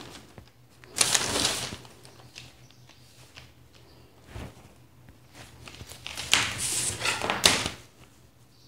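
Sheets of pattern paper rustling and a plastic ruler sliding and tapping on them as the pattern is marked and moved on a table, in short bursts about a second in and again from about six to eight seconds.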